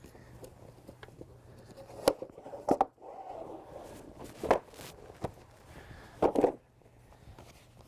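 Folding-canoe keel frame parts knocking and clacking together as they are slid into a cotton packing sleeve: a few sharp knocks, some in quick pairs, with a little scraping between them.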